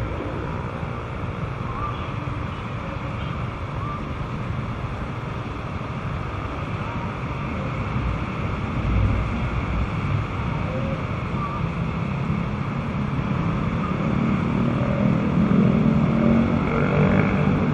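Motorbike traffic waiting at a red light: scooter engines running at idle under a steady rush of street and wind noise. A vehicle's engine grows louder near the end.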